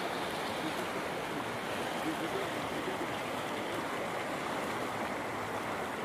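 Fast-flowing, shallow river rushing over stones, a steady unbroken noise of moving water.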